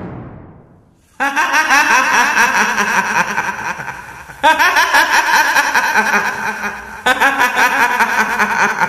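A woman's high cackling ghost laugh in the style of the kuntilanak, in three long bursts of rapid "hi-hi-hi" about three seconds apart. Before the first burst, the tail of a loud bang fades away.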